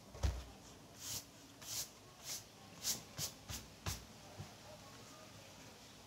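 A soft thump, then about seven short, hissy brushing sounds over some three seconds: something rubbing or sweeping across a surface.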